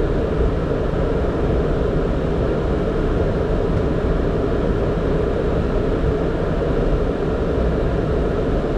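Steady rumble and hiss on a Boeing 767 flight deck while the jet taxis with its engines at idle.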